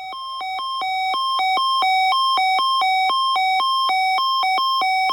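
Weather alert radio's alarm going off, set off by a NOAA Weather Radio warning-device test: an electronic beeping that jumps back and forth between a lower and a higher pitch in an uneven rhythm. It grows louder over the first second or so, then holds steady and loud.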